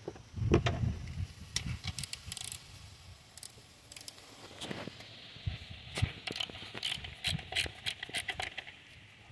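Hand ratchet and socket loosening a 10 mm bolt on the engine: a dull knock about half a second in, then sharp metallic clicks and clinks, with a quicker run of ratchet clicks, about four a second, in the second half.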